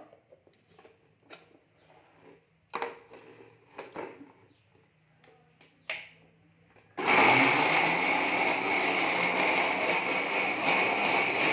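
A few light knocks and clicks, then about seven seconds in an electric mixer grinder starts abruptly and runs loud and steady, dry-grinding the roasted onion, ginger, garlic and whole spices into a masala paste.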